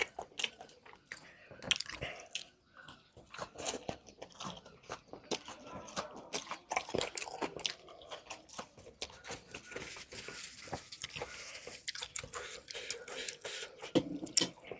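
Close-miked eating: a mouth biting and chewing food, with many sharp, irregular crunches.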